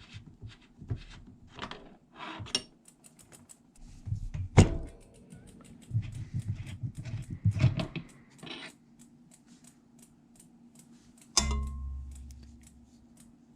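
Hand-tool work on a bicycle's pedals: metal clicks and knocks from a hex key and the pedals, with one loud knock about a third of the way in and a run of light, quick ticks. Near the end a sudden low hum sets in and fades away.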